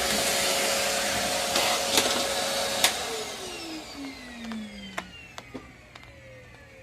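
Vacuum cleaner running with a steady whine, switched off about three seconds in, its motor whine falling in pitch as it spins down. Scattered light clicks and taps.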